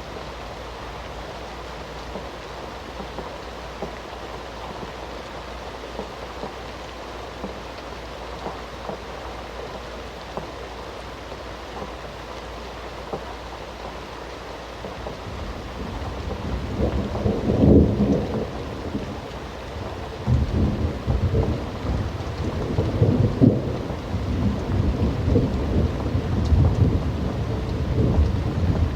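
Steady rain falling, with a thunderstorm's thunder rolling in about halfway through: a low rumble that builds, cracks loudly a few seconds later and keeps rumbling on and off to the end.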